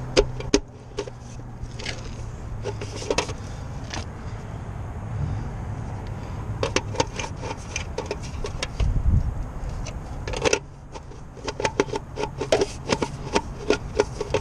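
Hand tools and small metal parts clinking, knocking and scraping as they are handled and stowed, with a quick run of clicks near the end, over a steady low hum.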